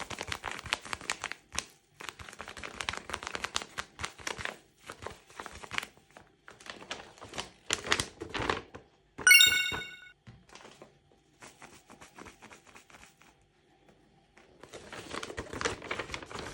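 Paper and tape crinkling, rustling and tearing in close, uneven bursts, as a handmade paper blind bag is handled and opened. A short bright chime rings once, about nine seconds in, and is the loudest sound.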